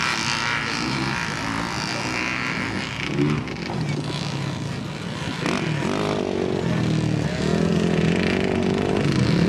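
Racing ATV (quad) engine revving hard on a dirt track, its pitch rising and falling again and again as the rider opens and closes the throttle.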